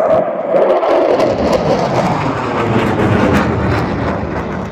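A pair of Dassault Rafale fighter jets, twin Snecma M88 engines each, passing overhead with a loud jet roar shot through with crackling. The roar deepens as they go by and starts to fade near the end.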